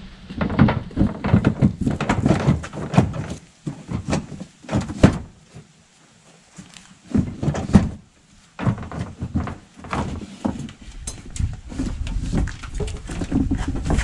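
Irregular knocks, clatter and scrapes of the skid steer's foot-pedal floor panel being worked loose and lifted out by hand, with brief pauses about six and eight seconds in.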